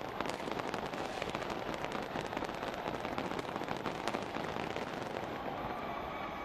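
Fireworks crackling densely and without a break: many small sharp pops running together into a steady crackling hiss, with no big booms.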